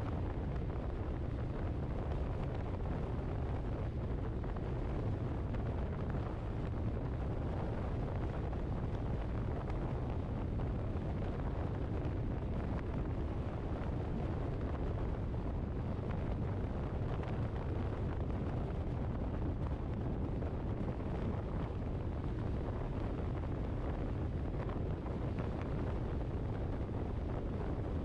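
Steady road and wind noise of a car driving, strongest in the low end, with no change in level.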